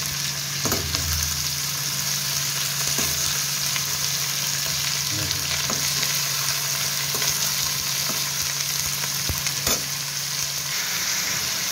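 Thin potato slices and green chillies sizzling steadily in hot mustard oil in a kadhai at the start of frying, with a flat spatula scraping and knocking against the pan every few seconds as they are stirred.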